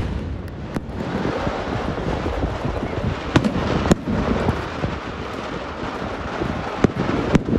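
Daytime vedikettu fireworks: aerial shells bursting overhead as scattered single sharp bangs, about six spread over several seconds, over a steady noisy background.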